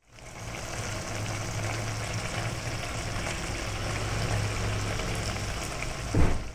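Chicken and vegetable stir-fry sauce simmering in a wok, bubbling with small crackles over a steady low hum. A short thump comes near the end.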